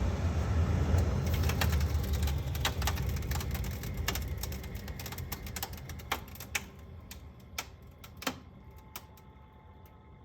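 Whynter heater shutting down after being switched off from heating mode: its fan hum winds down over several seconds while a rapid run of clicking and ticking sets in. The clicks thin out into a few louder single clicks near the end.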